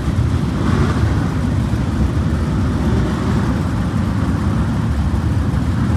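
Engines of a field of dirt-track open-wheel modified race cars running together at pace speed before a heat race, a steady low engine noise with no single car revving out.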